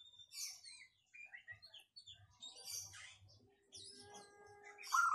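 Birds calling: scattered high-pitched chirps throughout. Near the end comes a louder quick run of lower notes, which fits the cooing of the caged zebra dove (perkutut).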